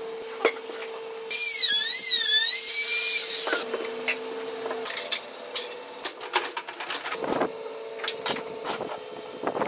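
INGCO jigsaw running with a steady hum, then cutting into a wooden board a little over a second in with a loud warbling whine that lasts about two seconds. After that come light wooden clicks and knocks as interlocking joint pieces are fitted together.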